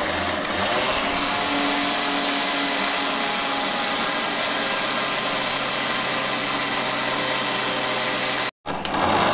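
Electric mixer-grinder running steadily at full speed, grinding roasted flaxseed into powder in its steel jar. It cuts out abruptly near the end, then runs again briefly.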